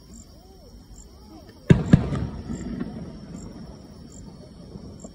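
Two aerial fireworks shells bursting in quick succession about two seconds in, with a deep rumble that dies away over about a second.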